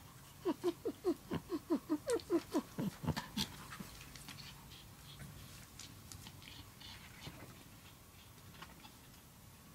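Chihuahua snorting through its nose in a quick run of about a dozen short huffs, roughly five a second, each dropping in pitch, over the first three seconds; after that only faint rustling and light clicks.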